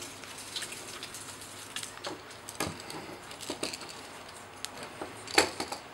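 Scattered light clicks and taps of a screwdriver and hand tools working the terminal screws and copper wires of an electrical outlet on a wooden bench, with one sharper click near the end.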